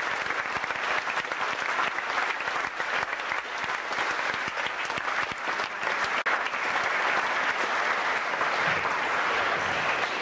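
An audience of schoolboys applauding: dense, steady clapping with a momentary break about six seconds in, thinning toward the end.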